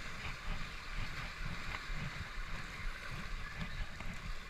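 Ocean surf washing over jetty rocks, a steady rushing wash of water.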